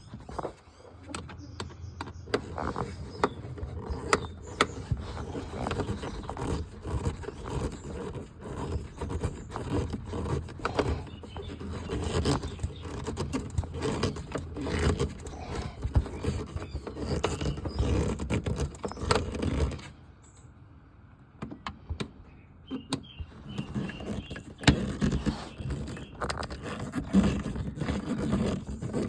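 Close-up clicking, scraping and rustling of screws being driven into a car's plastic turn-signal lamp housing with a screwdriver, with hand handling noise. It stops briefly about 20 seconds in, then resumes.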